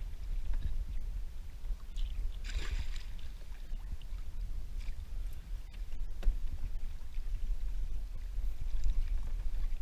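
Water sloshing and splashing around a kayak as a large grouper is worked into a landing net, with one brief splash about two and a half seconds in, over a steady low rumble.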